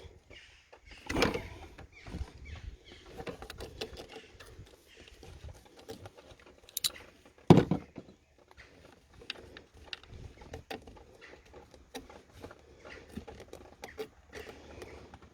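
Scattered clicks, taps and knocks of hands and metal tools on engine parts as bolts are worked loose, with two louder knocks, about a second in and about seven and a half seconds in.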